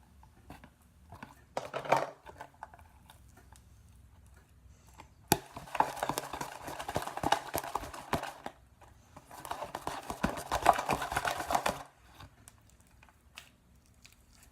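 Homemade slime being squished and kneaded by hand, with rapid wet sticky clicks and crackles in two long spells after a shorter one, as the slime is coming together.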